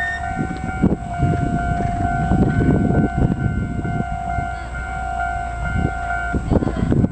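Railway level-crossing warning alarm ringing in a steady two-tone pattern over low rumbling and clatter. The alarm stops about six seconds in.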